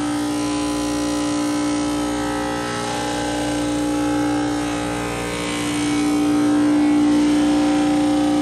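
Kaeser TI601 refrigerated air dryer running: a steady machine hum with one strong steady tone, getting a little louder about six seconds in. Its AC pump is said to be bad.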